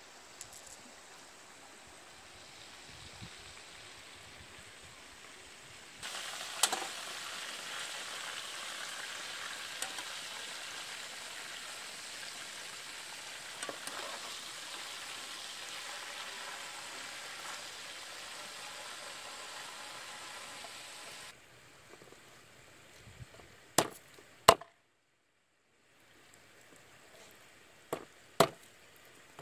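Faint steady hiss at first, then chicken frying in hot oil in a pan: an even sizzle, with a spatula clicking against the pan now and then. Later a large knife chops through the fried chicken onto a wooden cutting board in two pairs of sharp knocks, the loudest sounds.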